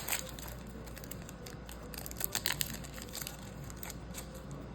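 Foil trading-card pack wrapper crinkling as it is handled and torn open, with a cluster of sharper crackles about two and a half seconds in.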